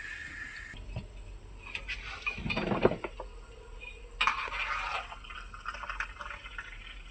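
Kitchenware being handled: light clinks and knocks, with two short bursts of clattering noise, the first and loudest about two and a half seconds in, the second just after four seconds.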